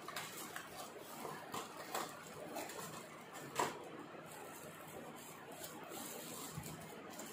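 Faint handling noise: plastic packaging rustling, with a few light clicks as a plastic RC radio transmitter is handled and turned over, the clearest click a little past halfway.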